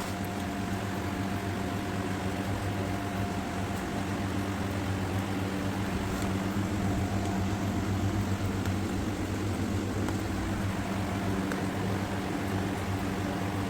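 A steady, even mechanical hum with a low drone and a faint higher whine, like a fan or air conditioner running, with a few faint ticks over it.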